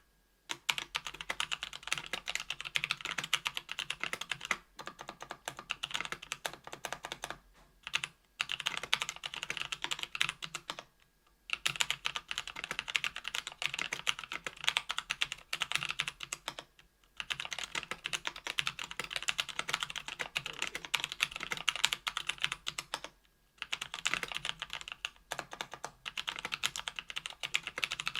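Steady fast typing on a mechanical keyboard with stock Kailh Speed Copper 60g tactile switches, GMK keycaps and an aluminum plate and case: rapid key clacks in runs of several seconds, with brief pauses now and then.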